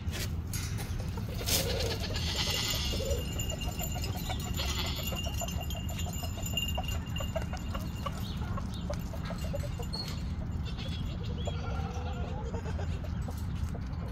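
A flock of backyard chickens clucking and calling as they peck at scratch, with a run of quick repeated clucks in the middle and a steady low rumble underneath.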